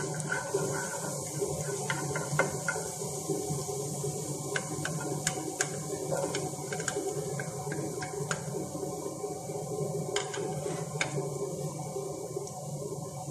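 Hot cooking oil sizzling steadily in a nonstick pan, with scattered light taps and scrapes of a wooden spatula against the pan as diced onion is stirred in. A steady low hum runs underneath.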